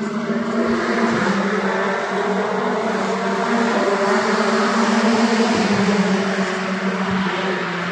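Touring cars racing on the circuit: a steady drone of engines at speed, its pitch dropping slightly about five and a half seconds in.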